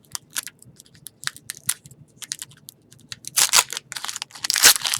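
Wrapper of a trading-card pack crinkling and crackling as it is worked open by hand, a pack that is hard to open. Scattered sharp crackles at first, then denser, louder crinkling from about three seconds in.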